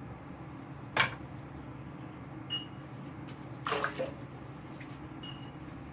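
Kitchen knife and hands working raw chicken breast on a cutting board: one sharp knock about a second in, then a short scraping, rustling stroke a little later, over a steady low hum.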